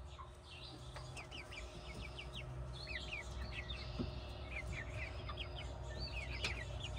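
A flock of hens giving many short, high-pitched calls and squawks in quick succession, fairly faint, as they squabble over food.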